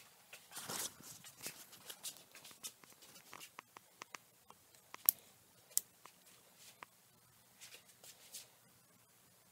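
Handling noise from a camera being moved on a dial indicator stand: a rustle near the start, then scattered sharp clicks and light knocks, with two louder clicks about five and six seconds in.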